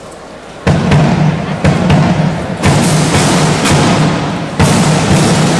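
A marching band's drum section strikes in suddenly about 0.7 s in, playing loud, hard drum hits with deep bass drum, as the band's piece begins.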